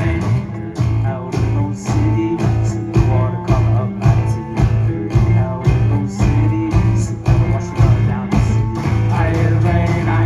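Live rock band playing an instrumental stretch of the song, with drum hits on a steady beat over bass and guitar.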